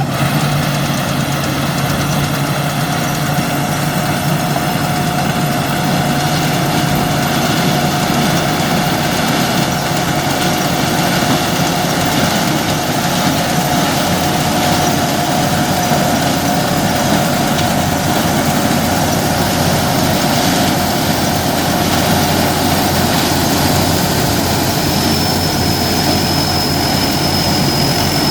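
Engine-driven corn sheller machine running steadily, a constant drone with a steady whine over it; a second, higher whine joins in near the end.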